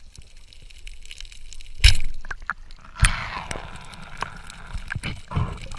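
Speargun fired underwater: a loud sharp snap about two seconds in, a second sharp knock about a second later, then rushing, bubbling water.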